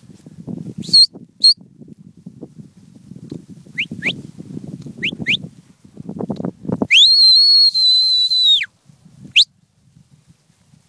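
A shepherd's whistled commands to a herding dog: two short high blasts, then four quick rising chirps, then one long, steady high note of about a second and a half, and a last rising chirp. A low rustling runs underneath until about seven seconds in.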